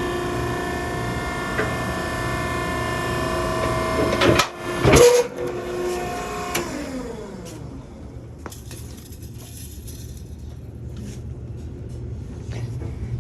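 Hydraulic pump motor of a Maren cardboard baler running with a steady whine. A couple of loud clunks come about four to five seconds in, then the whine falls in pitch as the motor winds down, leaving a low rumble.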